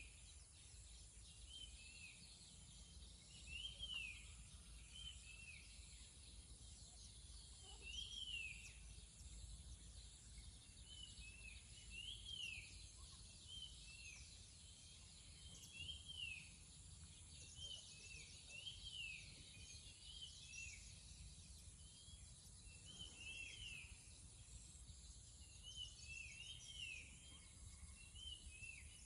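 Birds calling at dusk: short notes that rise and fall in pitch, repeated every second or two, with faint high insect-like trilling at times over a low steady rumble.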